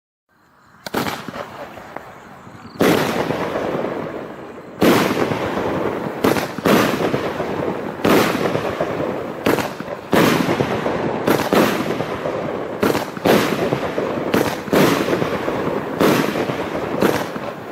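Fireworks cake (battery) firing shot after shot, starting about a second in. Sharp bangs come roughly once a second, some in quick pairs, with a dense crackling noise filling the gaps between them.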